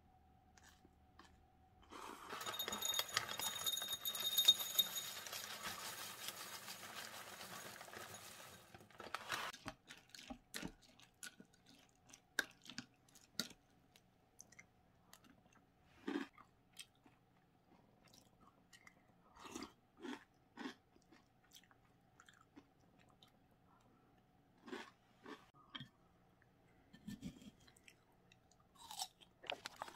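A person eating cereal with milk from a ceramic bowl: a metal spoon clinks and scrapes against the bowl, between bouts of crunching and chewing. Near the start a dense rattling rush lasts about seven seconds.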